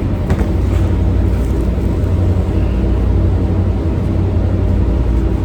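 Boat engines running, a loud, steady low drone.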